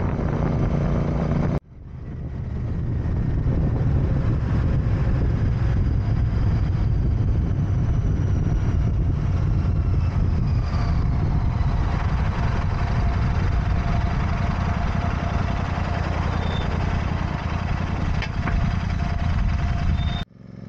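Royal Enfield motorcycle engine running steadily on the move. The sound cuts out abruptly about one and a half seconds in and fades back up over the next couple of seconds, then dips out again near the end.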